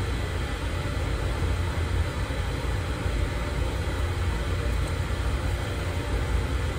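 Air compressor running: a steady low rumble with an even hiss above it.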